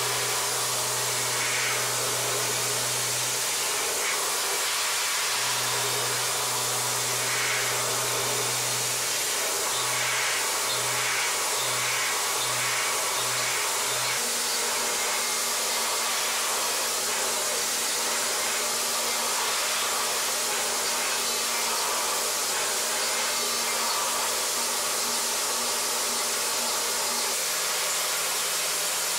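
CNC milling spindle and solid carbide end mill cutting steel: a steady hiss of cutting and chips over a low hum at spindle speed. The hum comes in long stretches, then breaks into short pulses about twice a second as the cutter goes in and out of the cut, and about halfway through it gives way to a higher hum from a second, faster-spinning cutter.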